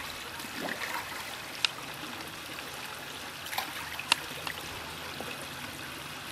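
Steady trickle of running water into a pond, with a few short sharp clicks scattered through, the loudest about four seconds in.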